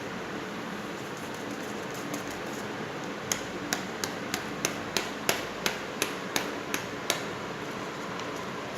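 A run of about a dozen light, sharp taps, roughly three a second, from tapping glitter out over glued paper, over a steady background hiss. The taps start a few seconds in and stop after about four seconds.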